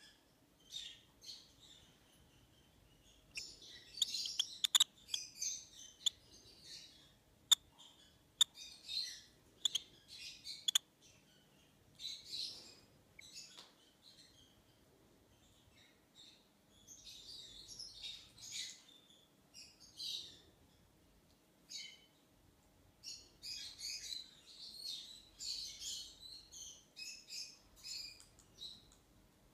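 Peach-faced lovebird chick making high, squeaky chirps in scattered bursts, with a few sharp clicks between about five and eleven seconds in.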